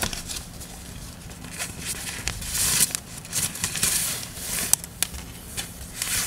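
Rustling and swishing of a black cloth rod sleeve as a fishing rod is pulled out of it, in irregular bursts, with one sharp click about two-thirds of the way in.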